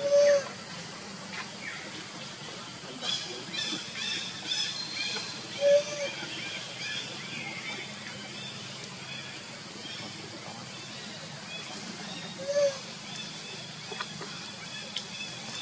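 Outdoor ambience: a steady high hiss, with three short, loud calls on one low pitch about six seconds apart and a run of faint chirps between the first two.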